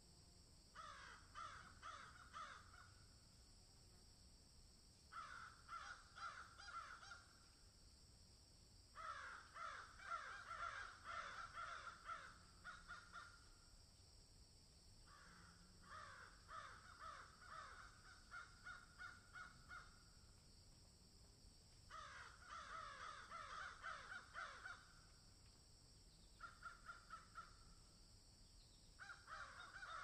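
Crows cawing, faint, in about seven bouts of rapid repeated caws, each lasting a few seconds with short pauses between.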